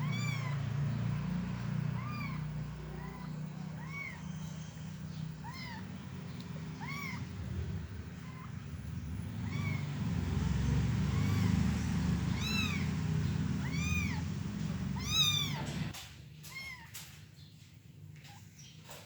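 Young kittens mewing: short, high, rising-and-falling mews repeated about once a second, over a steady low rumble that stops near the end.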